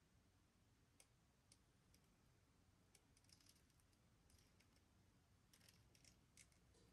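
Near silence: faint room tone with scattered small faint clicks and ticks, a few singly in the first two seconds, then a cluster from about three seconds in and another near the end.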